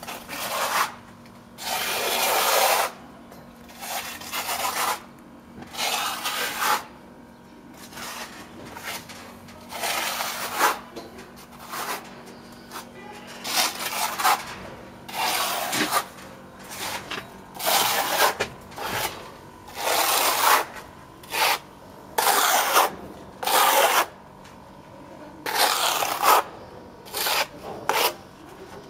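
Steel plastering trowel scraping and spreading render over mesh-reinforced cork insulation board, in repeated short strokes a second or so apart.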